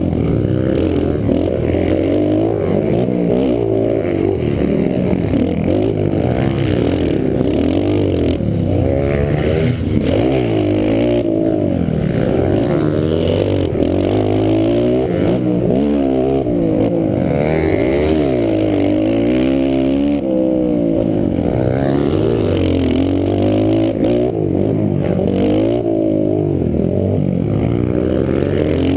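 Pit bike engine being ridden hard, revving up and dropping back over and over as the throttle opens and closes, its pitch rising and falling every second or two.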